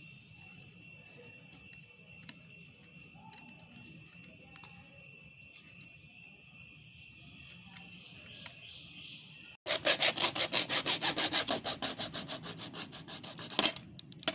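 Hacksaw blade in a homemade PVC wiring-pipe frame sawing through a piece of black plastic pipe in quick, even strokes, about five a second. The sawing starts about two-thirds of the way in and stops just before the end.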